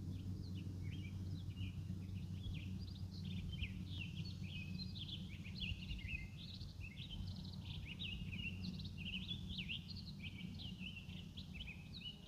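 Townsend's Solitaire singing: a long, jumbled, finch-like warble of quick whistled notes that runs on without a break, over a low steady background rumble.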